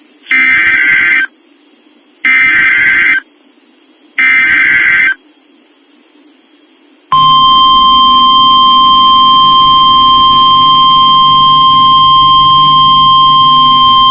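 NOAA Weather Radio Emergency Alert System alert starting: three roughly one-second bursts of SAME digital header data, a harsh screech, about two seconds apart. About seven seconds in, the steady single-pitch weather radio warning alarm tone begins and holds, announcing a Shelter In Place Warning.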